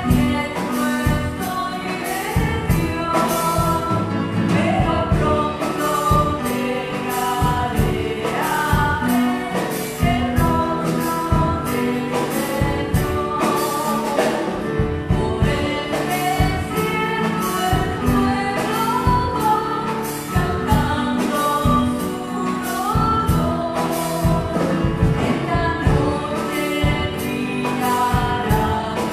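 Church music group singing a hymn: women's voices through microphones over instrumental accompaniment with a steady beat.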